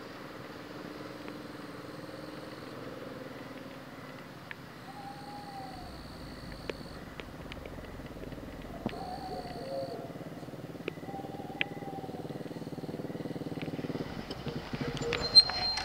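Small step-through motorcycle engine running as it rides closer, growing louder near the end. A few short rising-and-falling calls and a high steady chirr that comes and goes sound over it.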